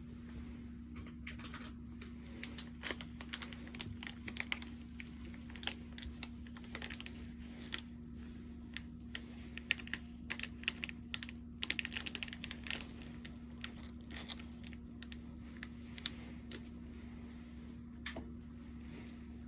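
Irregular light clicks and crackles, some in quick clusters, over a steady low hum.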